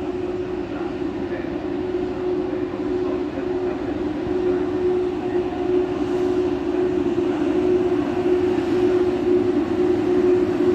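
A Frecciarossa high-speed electric train approaching along the platform track. Its running noise grows steadily louder over a constant, even hum.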